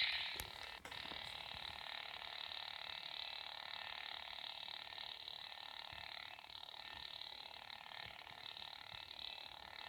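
A steady, unwanted electronic hum made of several high, level tones with a faint hiss, the hum problem the recording sets out to show. A loud sound dies away just at the start.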